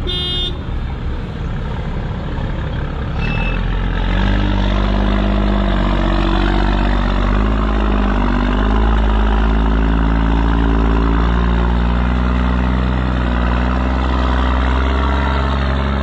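Loaded dump truck's diesel engine running as the truck pulls away, growing much louder about three seconds in, its note rising and falling a little as it works. A brief beep sounds right at the start.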